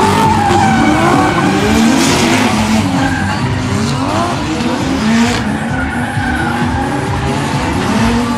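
Several drift cars sliding together, their engines revving up and down over one another while the tyres screech.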